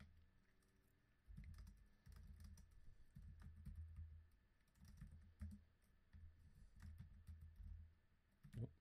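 Faint typing on a computer keyboard: runs of keystrokes in several bursts with short pauses between them, and one louder knock near the end.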